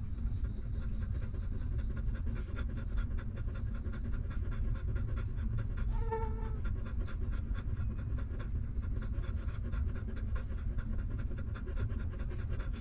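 Mother dog panting fast and steadily, close by, with a single short whimper about halfway through.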